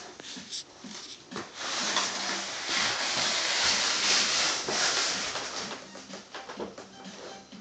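Cardboard diaper box pushed across a hardwood floor, sliding with a rough scraping rush. It starts about two seconds in, lasts about three seconds and stops, with a few light knocks of the box before it.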